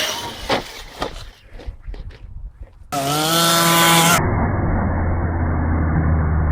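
Radio-controlled model vehicles: a run of knocks and clatters as they crash and bump, then about three seconds in a loud electric motor whine for about a second. This is cut off by a muffled, steady low hum of another clip.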